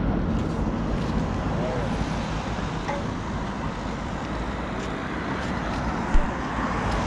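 Steady outdoor rumble with faint distant voices, and one short knock about six seconds in.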